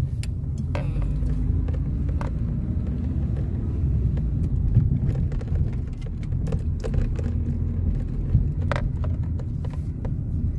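Road noise inside a moving car: a steady low rumble of engine and tyres, with a few short clicks.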